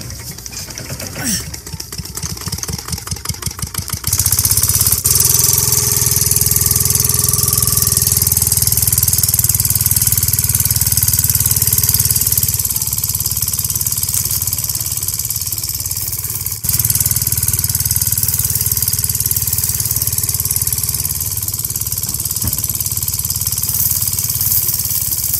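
Miniature model engine running with a fast, even putter while it drives a belt-driven hopper machine. After about four seconds a louder, steady machine noise with a strong hiss takes over, with a brief break a little past halfway.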